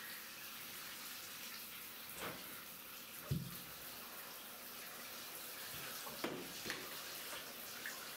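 Water splashing in a bathtub as a person scoops and splashes bathwater over himself: a few short splashes, about two, three and six to seven seconds in, over a faint steady hiss.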